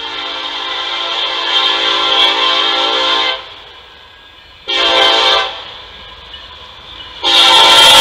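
Diesel freight locomotive's air horn sounding for a grade crossing: a long blast of about three seconds, a short blast about five seconds in, then another blast starting about seven seconds in, the loudest, as the locomotives draw close.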